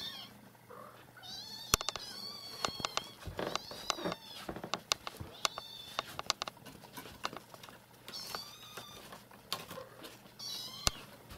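Young nursing kittens mewing in short, high-pitched cries, again and again, calling to their mother cat as she returns to them. Scattered light clicks and knocks come in between.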